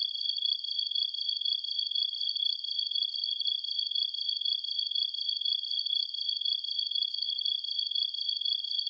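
Late-summer night insect chorus: crickets trilling without pause, two steady high-pitched trills layered together.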